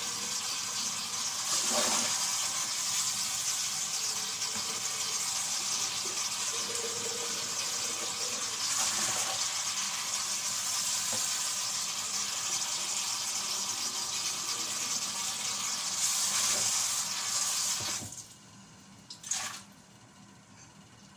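Water running from a sink tap onto a glass coffee carafe being rinsed, the splashing swelling louder at times as the carafe fills. The tap is shut off near the end, followed by a brief knock.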